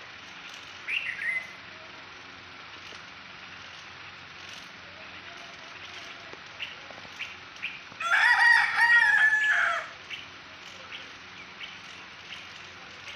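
A rooster crows once, about eight seconds in, a loud call of about two seconds. A short, falling bird chirp comes about a second in, and faint scattered chirps sound around it.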